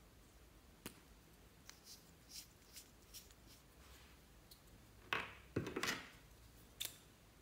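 Fingers handling a plastic lip balm tube: a scatter of faint clicks and ticks, with a louder run of short scrapes and taps about five to six seconds in.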